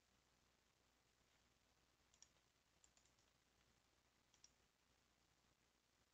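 Near silence, with a few faint computer mouse clicks: one about two seconds in, a couple around three seconds, and one past four seconds.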